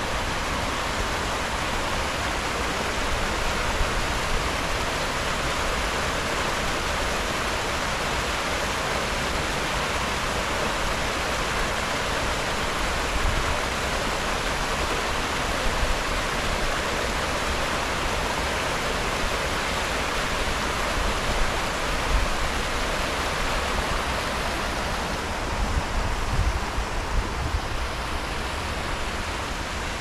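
Steady rush of the river Gacka's water near its source, flowing fast over falls or rapids, with a few low rumbles near the end.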